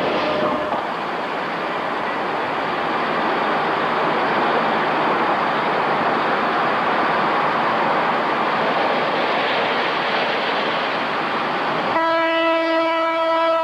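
Electric interurban train running on the rails, a steady rushing rumble; about twelve seconds in the train's horn cuts in with one long, steady blast.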